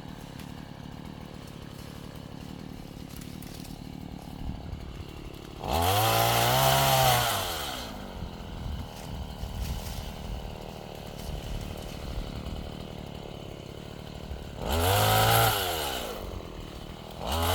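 Chainsaw engine idling, revved up to high speed and back down twice, with a third rev starting near the end.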